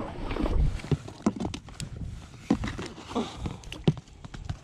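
Irregular knocks and clicks of fishing gear and wood on a small boat, several sharp knocks spaced about a second apart.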